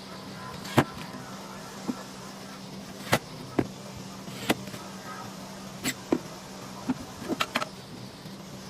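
Sharp, irregular knocks and taps of wood and tools being handled at the workbench, about a dozen, clustered near the end, over a steady low hum.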